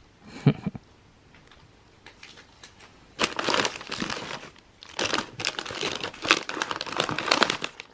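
Snack packaging being handled: a short knock about half a second in, then from about three seconds on a continuous crinkling of wrappers and packing.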